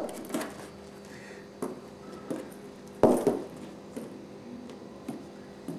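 Scattered light taps and knocks of a cat's paws on a cardboard box and a ping pong ball knocking about inside it, the loudest knock about three seconds in.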